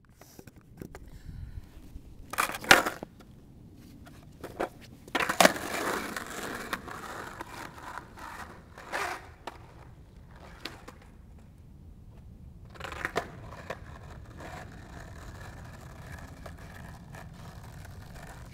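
Skateboard on an asphalt street: several sharp knocks and a scrape in the first half, then a steady rumble of the wheels rolling from about two-thirds of the way in.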